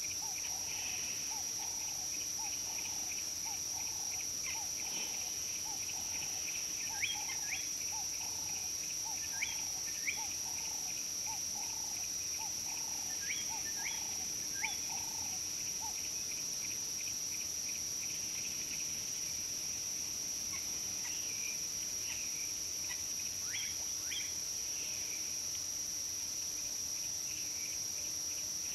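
Steady high-pitched insect drone with birds calling over it. A quick run of repeated low notes lasts through the first half, and several sharp, downward-sweeping chirps come scattered through.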